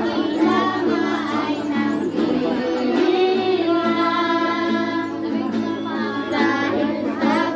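A group of women and children singing a song together to acoustic guitar accompaniment.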